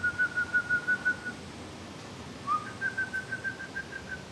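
A high trilled whistle, heard twice: the first trill runs on until about a second in, and the second starts with a short upward slide halfway through. Each pulses evenly about seven times a second at one steady pitch.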